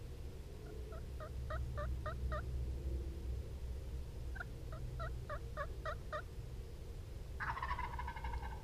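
Wild turkeys calling: two runs of six or seven evenly spaced yelps, then a louder gobble about seven and a half seconds in.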